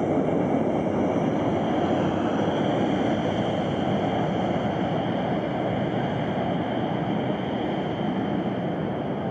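Boeing 737's CFM56 turbofan engines at taxi power: a steady jet rumble with a faint high fan whine, slowly fading as the airliner taxis away.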